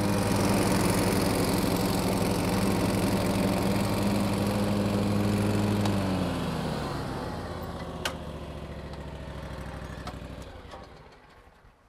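Wright Stander X stand-on mower's engine running steadily at speed, then throttling down about six seconds in, with a falling whine as it winds down and a sharp click about two seconds later. The engine shuts off near the end and the sound dies away.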